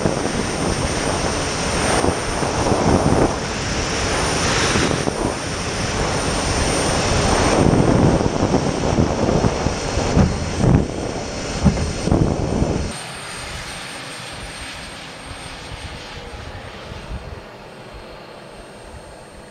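MAGMA unmanned aircraft's small jet engine heard from an onboard camera: a steady high whine over a loud rush of air, with buffeting thumps on the microphone. About 13 seconds in the sound drops suddenly to a much fainter, distant engine whine.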